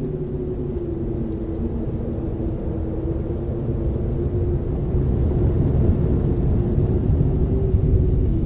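Low rumbling drone with a steady, slightly wavering hum over it, growing louder about halfway through.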